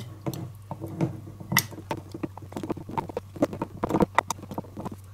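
Wooden spoon stirring rye sourdough starter and warm water in a glass jar, knocking and scraping against the glass in quick, irregular clicks as the starter is worked loose from the sides.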